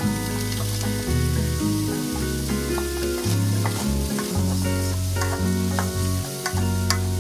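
Stir-frying in a wok: a steady sizzle with the clicks and scrapes of a wooden spatula tossing shredded napa cabbage, meat and egg. Background music with a low bass line plays throughout.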